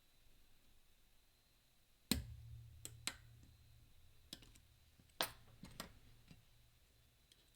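Sharp irregular clicks of a pick and tensioner working the disc core of a Mindy flat pagoda padlock, about eight clicks in all, the loudest about two seconds in and about five seconds in, with a low handling rumble after the first loud one.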